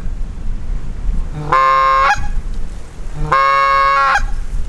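Hand-blown goose call sounding two long, drawn-out honks, each under a second and about two seconds apart, calling to distant flying geese. Wind rumbles on the microphone underneath.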